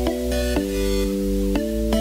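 Background music: held chords over a deep bass, the chord changing twice.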